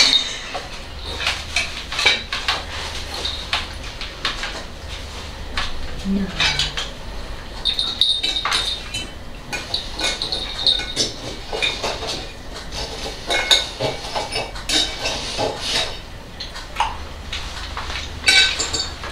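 Knives and forks clinking against ceramic plates as chicken is cut and eaten: a run of irregular sharp clinks, some ringing briefly.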